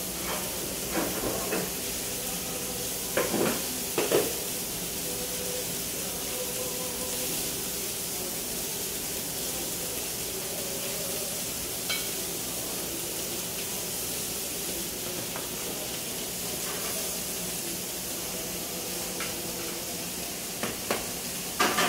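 Steaks sizzling on hot cast-iron sizzle platters, a steady hiss, with a few sharp knocks about three and four seconds in and again near the end.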